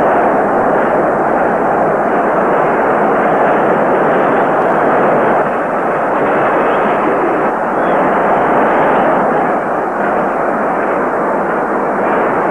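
A huge stadium crowd cheering in one continuous, unbroken roar, heard dull and muffled through an old film soundtrack.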